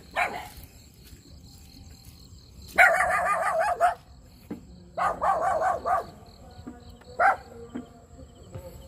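A dog barking in four bouts of rapid barks, the longest lasting about a second, over a faint steady high whine of insects.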